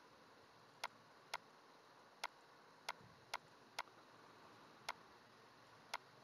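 Computer mouse button clicks: about eight sharp single clicks at irregular intervals over faint background hiss.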